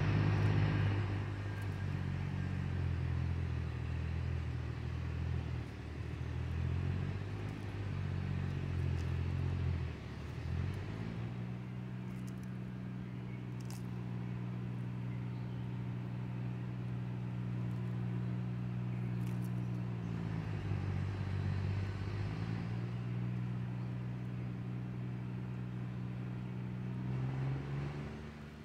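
A motor or engine runs steadily with a low hum. Its pitch shifts and settles about ten seconds in, again around twenty seconds, and once more near the end.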